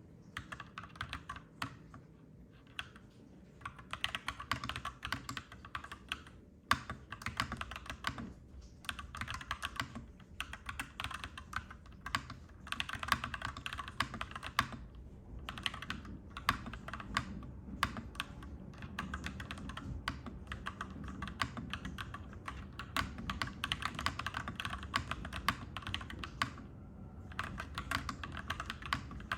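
Clacky mechanical keyboard being typed on in quick runs of keystrokes with brief pauses, over a low steady rumble that grows stronger in the second half.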